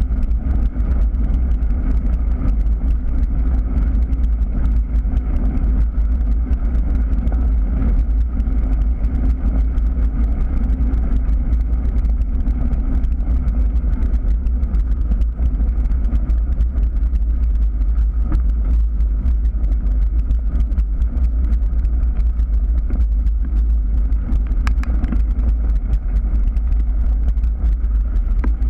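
Steady wind buffeting on the microphone of a camera carried on a moving bicycle, a heavy continuous rumble, mixed with the fine crunching of bicycle tyres rolling over a gravel path.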